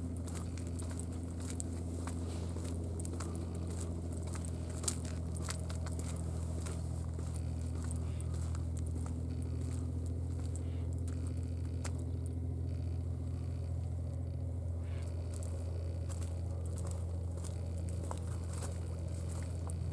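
Scattered light clicks and crackles from footsteps and from handling a handheld camera, thinning out about halfway through, over a steady low hum.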